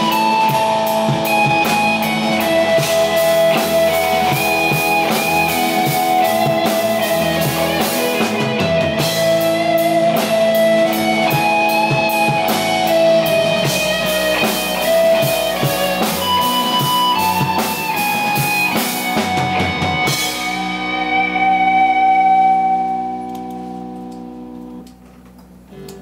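Indie rock band playing live: electric guitars, bass guitar and drum kit in an instrumental passage. About twenty seconds in the drums stop and a held guitar chord rings on and fades away.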